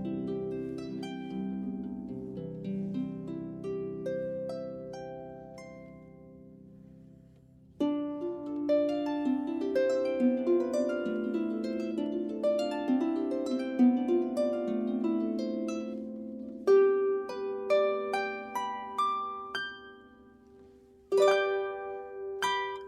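Solo harp, plucked notes ringing and dying away in slow phrases. A phrase fades almost to nothing about seven seconds in before new plucked notes begin, and another phrase trails off near the end before a fresh run of notes starts.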